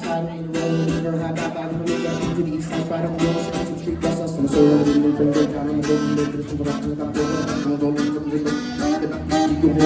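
Live band playing an instrumental passage of a rock song, guitar to the fore, with the deep bass thinned out.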